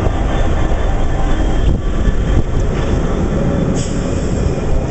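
Locomotive-hauled test train passing close at speed: a steady heavy rumble and rush of wheels on rail, with no pauses.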